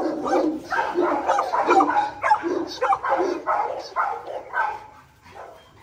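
Pitbull barking over and over, about two to three barks a second, stopping shortly before the end.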